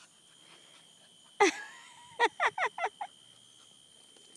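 An animal gives one sharp call, followed about a second later by a quick run of five short calls, over a steady high insect drone.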